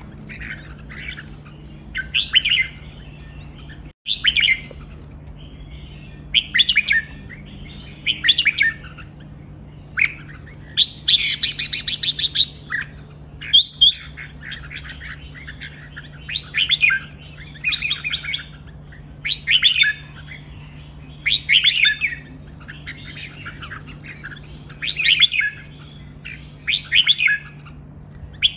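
Red-whiskered bulbuls singing: short chirping song phrases, one every second or two.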